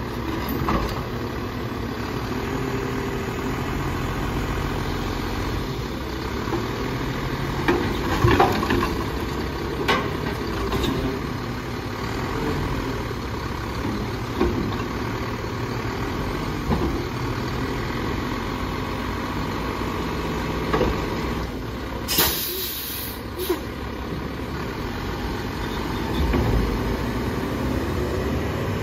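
Mack LEU garbage truck with a McNeilus Atlantic front-loader body running as its forks lift a Curotto-Can over the cab and dump it into the hopper, with several knocks and bangs about eight to ten seconds in. A sharp air-brake hiss comes about 22 seconds in.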